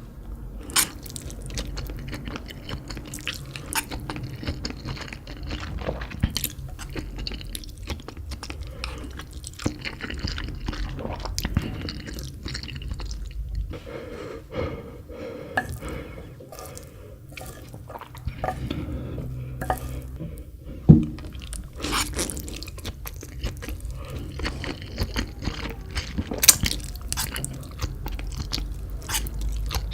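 Close-up chewing of spicy instant noodles, with many small wet mouth clicks and one sharper knock about two-thirds of the way through.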